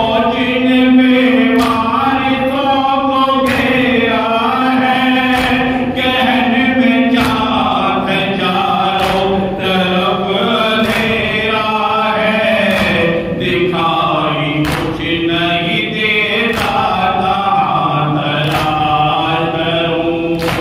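A man chanting a noha, a Shia lament, into a microphone. Sharp chest-beating strikes of matam come roughly once a second under the singing.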